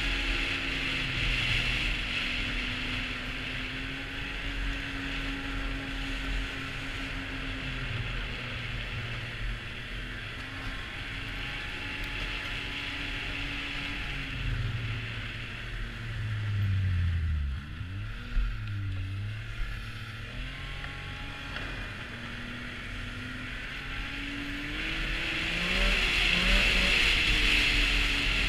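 Arctic Cat snowmobile with a Yamaha 1049cc three-cylinder four-stroke engine running down a trail at a steady pace. About two-thirds of the way through the engine note drops as the throttle eases off, then climbs again, and near the end it rises and gets louder under acceleration, over a steady hiss.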